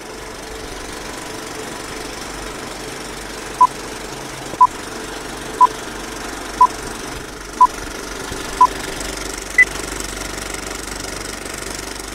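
Vintage film-countdown sound effect: a steady projector-like whirr with crackle, with six short beeps a second apart in the middle, then one higher-pitched beep.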